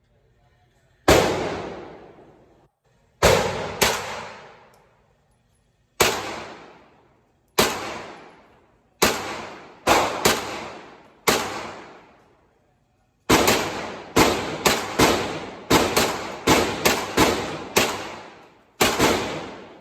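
Live fire from a 9mm firearm: about twenty shots, each with a long echoing tail. Single shots a second or more apart at first, then a quicker string of about two to three shots a second in the second half.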